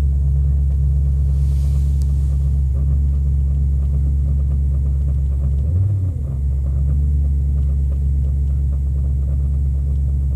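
2008 Audi S4's 4.2-litre V8 idling on a cold start with a grinding, rubbing noise over the engine, which dips briefly about six seconds in. The grinding comes only on the first cold start of the day after the car sits overnight below about 35 degrees.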